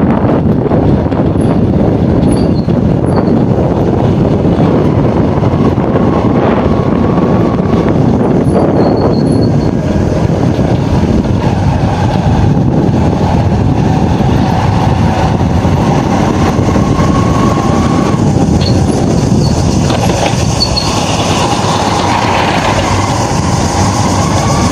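Small commuter motorcycle being ridden along a road: engine running at a steady pace under heavy wind and road noise on the handlebar-mounted microphone.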